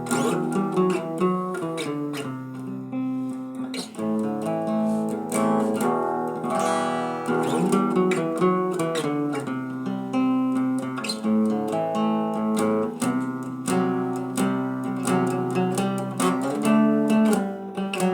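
Acoustic guitar playing an instrumental passage of picked and strummed chords with a steady pulse.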